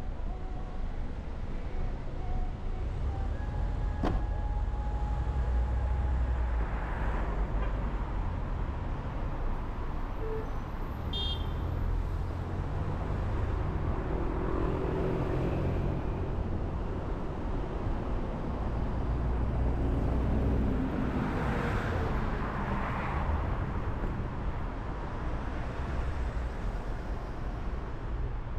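Car driving through city traffic: a steady low road and engine rumble, with other vehicles swelling past about three times and a sharp click about four seconds in.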